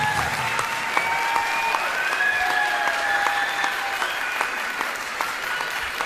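Audience applauding the cast's bow, clapping steadily, with a few long high tones over the clapping.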